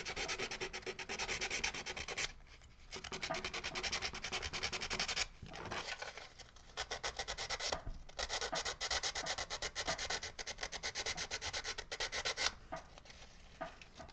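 Carved wood being scraped by hand in runs of rapid, short back-and-forth strokes, several a second, with brief pauses between runs.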